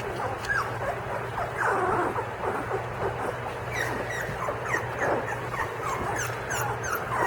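A litter of young puppies, their eyes just opening, squeaking and whimpering in many short, high squeals that come thicker and faster in the second half; the puppies are hungry.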